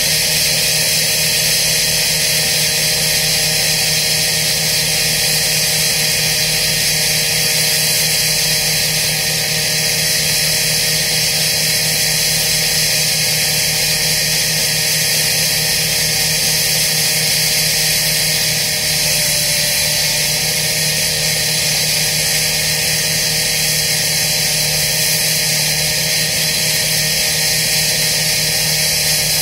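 Diesel engine of a heavy machine running steadily at an even speed, with a steady high hiss over it. No pile-driving blows are heard.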